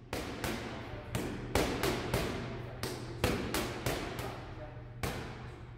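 Boxing gloves striking focus mitts in quick, uneven combinations, about fifteen slaps in a row, each ringing briefly in a large, echoing gym.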